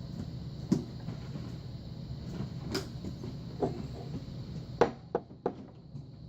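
Scattered knocks and clatters of small objects being moved while rummaging for a flathead screwdriver, over a steady low hum. The sharpest knock comes near the end, followed quickly by two more.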